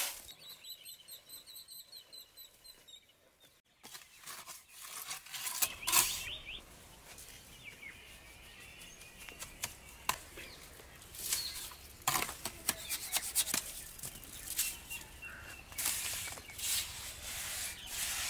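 A small bird chirping a quick run of short, high notes for the first few seconds, followed by scattered knocks and rustles of outdoor handling work.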